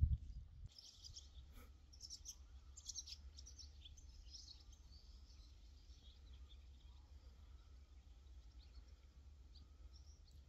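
Faint outdoor ambience of small birds chirping and twittering, busiest in the first few seconds and sparser after, over a low steady rumble, with a dull thump right at the start.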